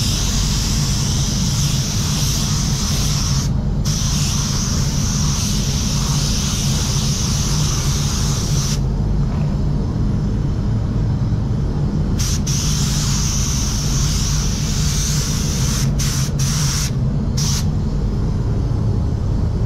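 Iwata W300 gravity-feed spot-repair spray gun hissing as it sprays clear coat in passes. The air hiss runs for most of the first nine seconds with a short break near four seconds, comes back for a few seconds past the middle, then gives a few short bursts near the end. A steady low hum runs underneath.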